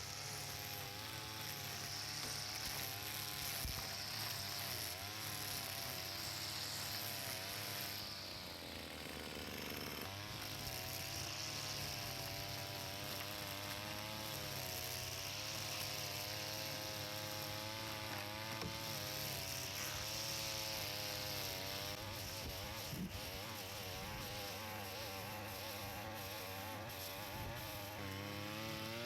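A brush cutter's small engine running while cutting grass, its pitch wavering up and down with the load. It slows about eight seconds in and picks up again about two seconds later.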